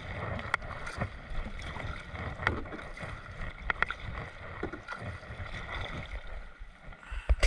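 Kayak paddle strokes on calm sea: water swishing and dripping off the paddle blades, with scattered light clicks and drips over a low steady rumble, and a louder knock near the end.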